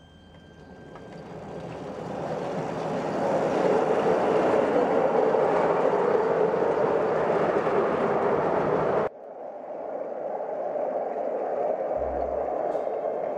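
Miniature 3½-inch gauge electric Woodhead locomotive moving off and running along the track, its running noise building over the first four seconds and then holding steady. The noise cuts off abruptly about nine seconds in and a similar running noise resumes, with background music coming in near the end.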